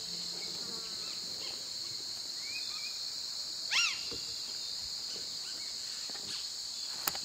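Steady high-pitched insect chorus in the forest, with one loud, short bird call about four seconds in and a sharp click near the end.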